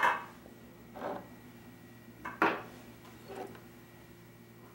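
Large metal spoon clinking and scraping against a metal bowl while stirring seafood ceviche in its liquid, about four separate short strokes with quiet between them.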